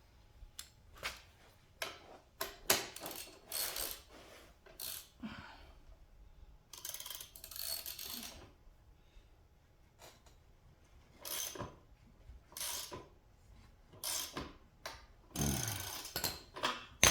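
Hand tools working on metal: a socket, adapter and ratchet wrench clinking and clicking in irregular short bursts as the minibike's chain-adjuster nuts are turned.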